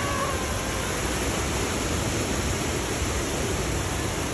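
Floodwater rushing and spraying against a passenger train car as it ploughs through flooded track, heard from inside the car as a steady, unbroken roar of water.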